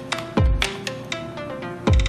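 Background music with a steady beat: a deep kick drum that drops in pitch, hitting twice, over crisp percussion ticks and a melody of short pitched notes.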